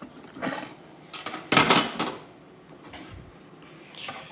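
Back cover of a Crosley CR704 music center being lifted off and handled: a series of irregular knocks, scrapes and rattles, loudest about a second and a half in.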